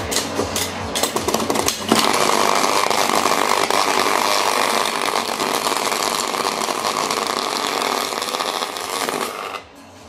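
Vacuum cleaner's universal motor burning out on an overvoltage supply, arcing and in flames. It crackles for about two seconds, then runs at full speed in a loud, harsh scream, and cuts off suddenly just before the end as it fails.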